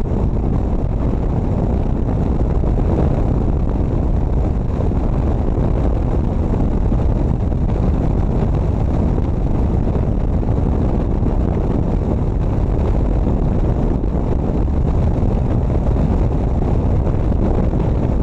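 Steady low rumble of wind buffeting the microphone, mixed with engine and road noise from a motorcycle cruising at highway speed.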